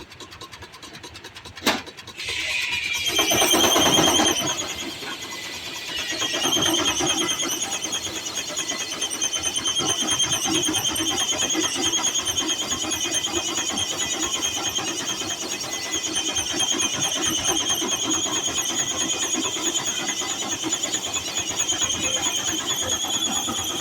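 Steam-powered sawmill's circular saw cutting a log: a loud, high, steady whine that starts about two seconds in, after a sharp click, and keeps going with a rougher rumble of the cut beneath it.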